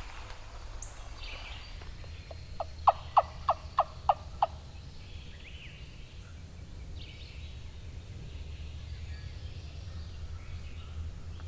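Wild turkey calling: a run of about seven short, evenly spaced yelping notes over about two seconds, with songbirds chirping faintly in the background.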